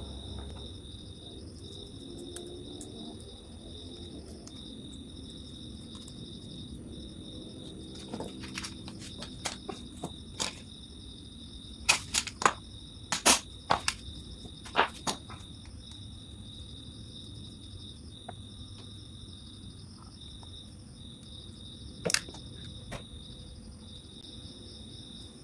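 Small hammer striking a motorcycle stator: scattered light taps, then a run of louder sharp strikes about halfway through and a single strike near the end. Crickets chirp steadily behind.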